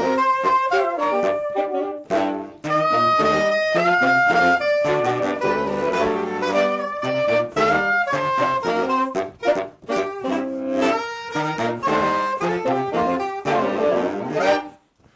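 Saxophone quartet of soprano, alto, tenor and baritone saxophones playing a four-part arrangement in close harmony, with the baritone giving a rhythmic bass line. The playing breaks off briefly near the end and comes back in.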